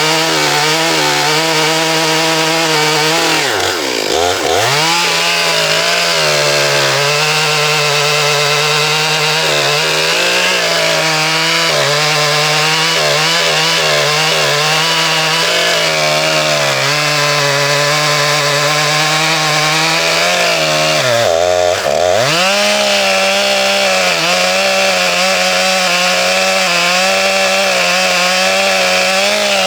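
Stihl 661 Magnum two-stroke chainsaw with a 36-inch bar running at full throttle through a large oak log, a steady high engine note. Twice, about four seconds in and again around twenty-one seconds, the engine pitch drops sharply and climbs back within about a second.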